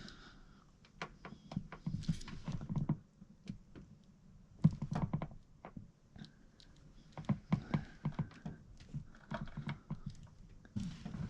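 Irregular light clicks, clinks and knocks of hand tools being handled, as a tap and tap wrench are readied for threading a drilled hole.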